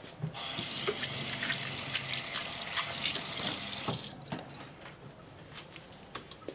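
Kitchen tap running into a sink while hands rinse under it, then turned off about four seconds in. A few light clicks and clatter follow.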